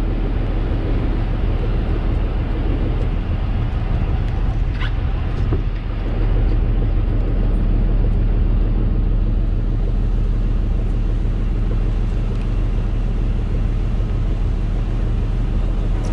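Fishing boat's engine running steadily while underway: a low drone with a hiss of wind and water over it, growing a little louder about six seconds in.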